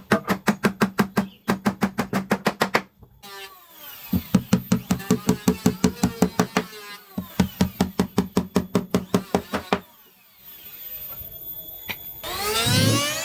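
Rapid, even knocks on wood, about six a second, in three runs of a few seconds each, like fast hammer or mallet blows in woodworking. Near the end a power tool starts up with a rising whine.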